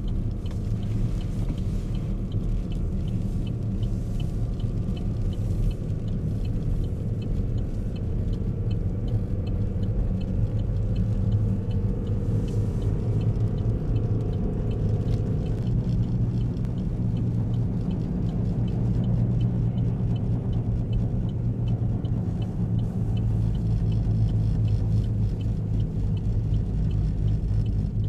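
Car driving, heard as a steady low rumble of engine and tyre noise, with a faint, evenly spaced ticking running through it.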